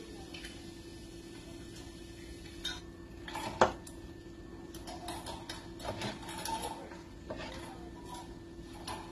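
Kitchen knife tapping and scraping on a plastic cutting board while small hot peppers are cut and seeded, in irregular clicks, the sharpest about three and a half seconds in and a busier patch about two seconds later.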